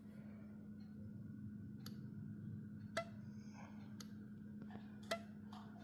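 Several sharp clicks, roughly one a second, over a faint low steady hum.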